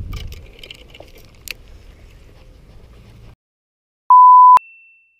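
Outdoor ambience with low wind rumble and a few faint clicks, cut off abruptly about three seconds in; a moment later a loud, steady single-pitch censor bleep sounds for about half a second, followed by a faint higher tone that fades out.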